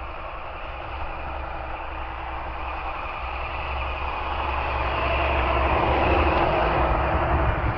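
Brushless electric motor of a Kyosho Foxx RC truck running flat out under heavy strain as its paddle tires churn through deep powdery snow, growing louder over the second half.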